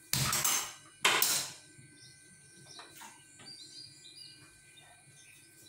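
Aluminium idli pot being shifted on the stovetop: two short, loud metallic scraping clatters about a second apart.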